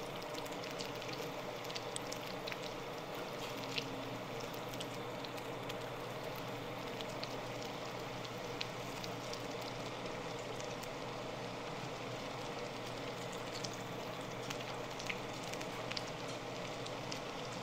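Eggplant (baigan) pieces shallow-frying in hot oil: a steady sizzle with scattered small pops.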